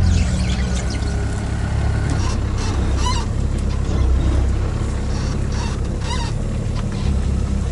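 An all-terrain vehicle's engine runs steadily as the vehicle drives across the tundra. Two short, wavering honk-like calls stand out about three and six seconds in.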